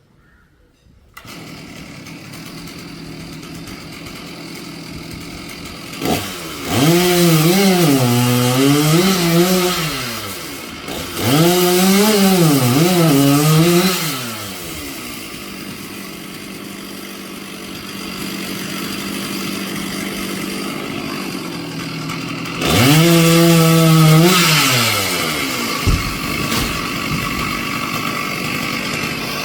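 Chainsaw starting up about a second in and running, revved hard three times with its pitch rising and sagging between spells of lower running.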